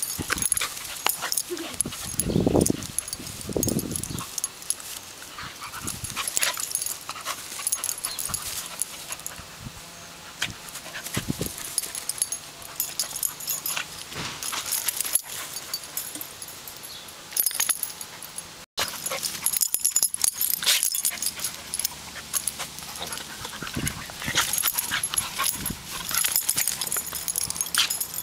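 Two dogs play-wrestling, mouthing and chewing at each other's faces: scuffling and mouth noises with occasional dog vocalising, the loudest two low vocal sounds a few seconds in.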